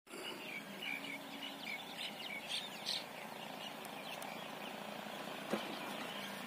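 Small birds chirping, a quick run of short chirps in the first three seconds over steady outdoor background noise, with a single sharp click about five and a half seconds in.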